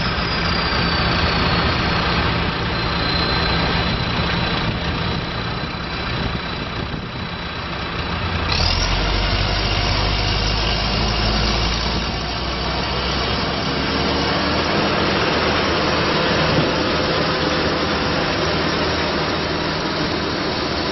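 John Deere 310J backhoe loader's four-cylinder diesel engine running steadily, with a thin high whine early on. About eight seconds in the sound changes abruptly to a heavier, deeper note, which eases again a few seconds later.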